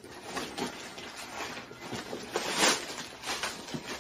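Handling of a backpack and tissue paper: irregular rustling and crinkling, loudest about two and a half seconds in.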